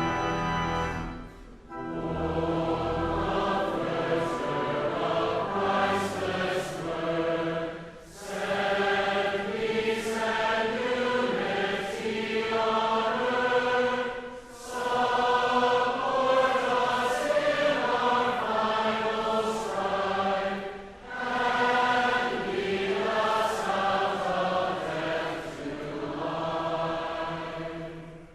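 A choir singing a hymn in slow phrases with short breaks between them, fading out near the end. A held chord from the preceding music ends about a second and a half in.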